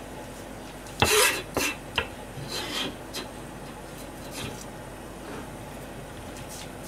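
Kitchen knife blade scraping and knocking on a plastic cutting board while gathering minced green onion. There are several short strokes, the loudest about a second in, and then a few lighter ones.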